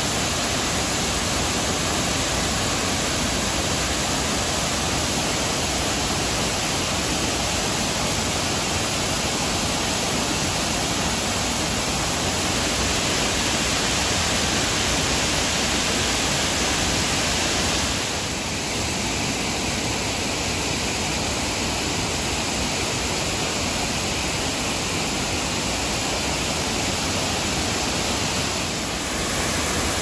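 Waterfall plunging down a rock face into a pool: a steady, even rush of falling water.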